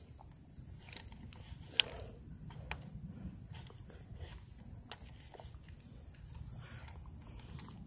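Quiet low rumble with a few scattered faint clicks and one sharp click just under two seconds in.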